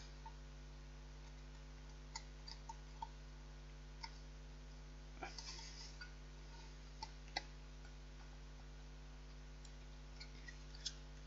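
Faint, scattered small clicks and taps of fingers and a tub of butter against a metal pie tin while it is greased with butter, over a steady low hum.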